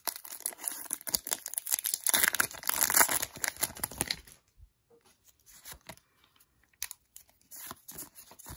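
Foil wrapper of a Pokémon trading card booster pack being torn open and crinkled for about four seconds. After that come softer, scattered rustles as the cards are slid out and handled.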